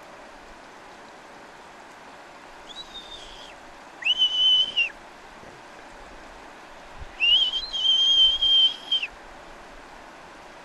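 Marmot giving alarm whistles: three high, flat-pitched whistles. A faint short one comes about three seconds in, a louder one about a second later, and a long one of nearly two seconds near the end.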